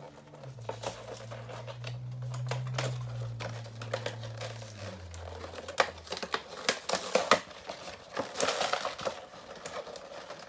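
Action figure packaging being worked open by hand: plastic and cardboard crinkling and rustling with many sharp clicks, busier and louder in the second half, over a low hum that stops about halfway.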